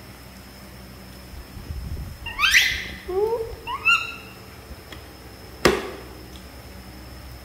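Young macaques giving a few short squeaky calls in the middle, each sliding upward in pitch, then a single sharp click.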